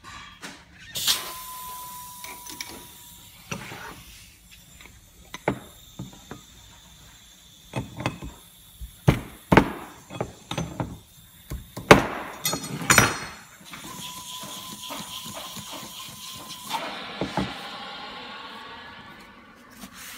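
Air hissing out of an inflated flowstopping gas bag as it is deflated, with a thin whistle in the hiss. In the middle come sharp metallic clicks and knocks from a spanner working the hose fitting at the bag's inlet. A second burst of hiss follows, then rustling and squeaking of the bag's fabric as it collapses.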